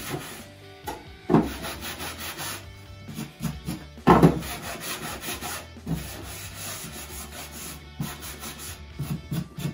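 Hand sanding block rubbing back and forth along the edges of wooden boards in repeated rasping strokes, easing off the sharp, rough edges. There are two louder knocks, about a second in and around four seconds in, as the wood is handled.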